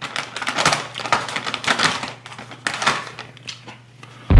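A plastic wet-wipe pack crinkling as it is opened and a wipe is pulled out, heard as an irregular run of small clicks and crackles.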